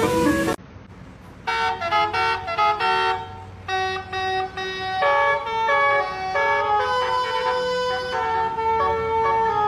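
Multi-tone 'telolet' bus air horn of the basuri type playing a melody. After a loud, noisy passage that cuts off about half a second in, a run of short notes starts about a second and a half in, followed by longer held notes.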